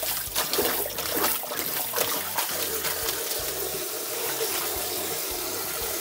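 Kitchen tap running a stream into a stainless steel bowl of water. For the first couple of seconds there is splashing as salted bomdong cabbage leaves are swished and rinsed by hand; after that the stream runs steadily.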